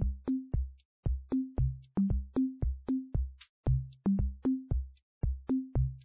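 Electronic background music on a drum-machine beat: short bass notes about three a second, stepping up and down in pitch, with high ticks over them.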